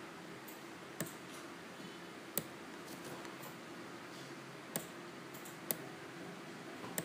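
Computer mouse clicking: a handful of single sharp clicks, a second or two apart, over a faint steady hum.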